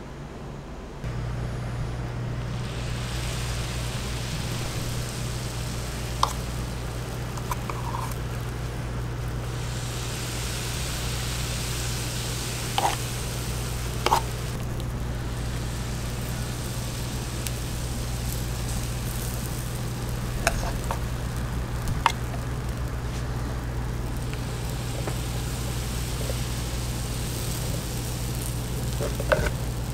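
Waffle batter hissing and sizzling on a hot waffle iron in long stretches, over a steady low hum, with a few short sharp clicks scattered through.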